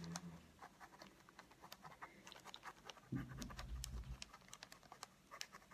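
Faint, rapid scratching of a ballpoint pen tip on tracing paper as a letter outline is traced with short back-and-forth strokes and even pressure. A soft, low sound lasting about a second comes about three seconds in.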